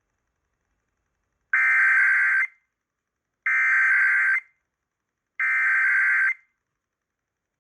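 Emergency Alert System SAME digital data bursts: three one-second bursts of two-tone modem code, about a second apart.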